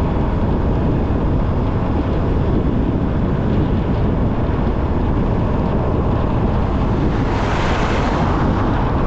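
Steady road and wind noise of a car being driven, with a brief louder hissing rush near the end.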